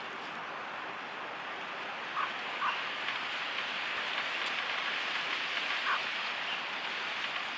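Steady hiss of outdoor lakeside ambience, with three brief higher sounds: two a little after two seconds in and one near six seconds.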